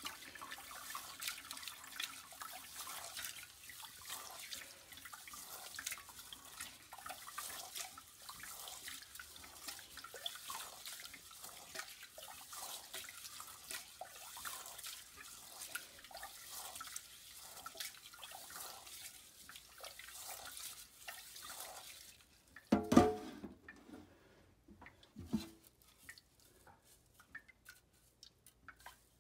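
Hand swishing and squeezing rice grains in water in a stainless steel pot: a steady wet rustle with many small splashes and drips as the rice is rinsed of its starch. Near the end the swishing stops and there are two knocks, the first one loud.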